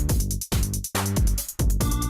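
Electronic dance background music with a steady drum-machine beat and a pulsing bass line.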